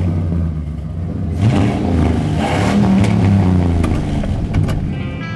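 A pickup truck's engine, just started on a battery frozen to −40 °C, running and being revved.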